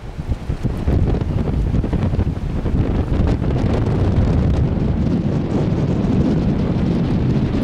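Wind buffeting the camera microphone: a loud, steady rumble that swells about a second in.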